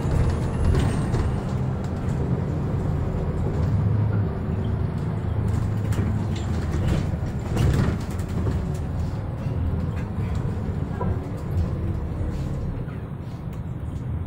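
Cabin noise of a MAN A22 (NL323F) diesel city bus on the move: a steady low engine and road drone with faint clicks and rattles, growing a little quieter near the end.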